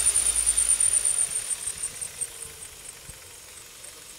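Kia Carens engine running with its accessory drive belt squealing, a high-pitched chirp repeating about ten times a second, which fades out around the middle, leaving the engine running quietly. The squeal is the sign of a slipping drive belt.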